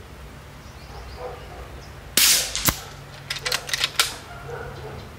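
.22 Uragan 2 PCP air rifle, fitted with the AAO upgrade kit, firing a 33-grain Zan slug: one shot about two seconds in, then a sharp crack about half a second later. A quick run of clicks follows as the biathlon cocking handle is worked to load the next slug.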